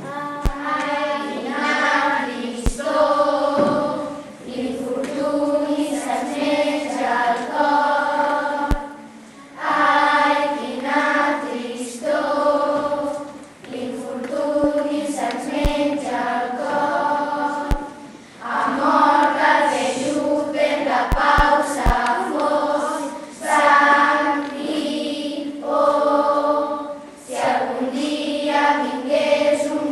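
A group of children singing together in unison, in phrases of a few seconds separated by short pauses.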